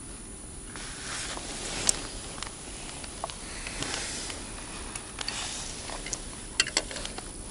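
A hooked fish being brought in and landed on the bank: short rustling swishes and scattered light knocks as it flaps about and the rod and line are handled, with a few sharper knocks near the end.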